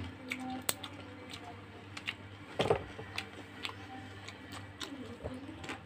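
Eating sounds from people chewing squid and rice by hand: scattered soft clicks and mouth smacks at irregular intervals, with one louder smack about halfway through.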